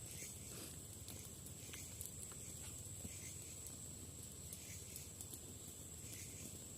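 Faint night-forest ambience: a steady, thin, high-pitched insect drone with scattered small clicks over a low rumble.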